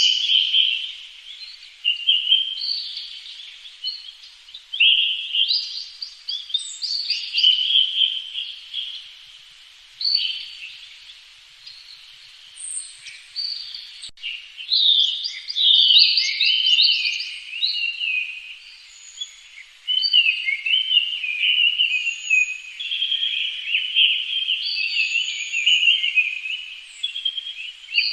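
Songbirds singing and chirping: many overlapping high, quick chirps and trills, with a quieter stretch about a third of the way in.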